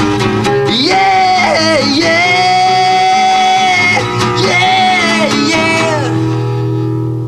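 Closing bars of a rock song: a male voice sings long, held, sliding notes over guitar, and the music fades out near the end.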